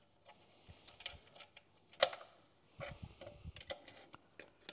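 Light metallic clicks and taps of a washer and nut being fitted by hand onto the reverse selector's pivot pin in the Sunbeam 1000HP's gearbox. There is one sharper click about two seconds in, then a quick run of small knocks.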